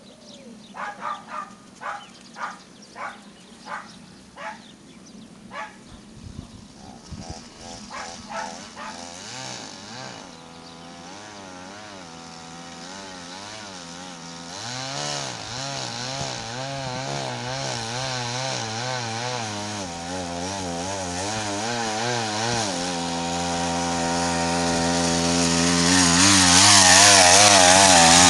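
Small engine of a homemade pedal quadcycle approaching from down the road, its pitch wavering up and down as the revs rise and fall, growing steadily louder until it passes close by near the end.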